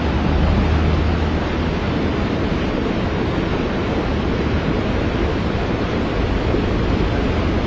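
Muddy floodwater rushing fast down a street, a steady rush of noise.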